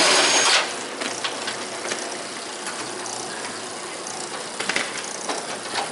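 Ratchet wrench clicking as the missed nut is undone, opening with a short loud rush of noise lasting about half a second, then scattered faint clicks.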